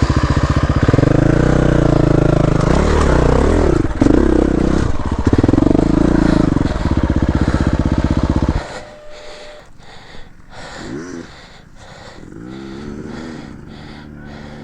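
Dirt bike engine revving hard, its pitch rising and falling, then cutting out suddenly about eight and a half seconds in.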